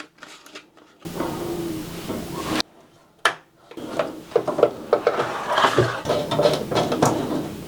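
Handling noise from computer parts and packaging: scattered clicks and taps, then a busy stretch of clicking and rustling in the second half.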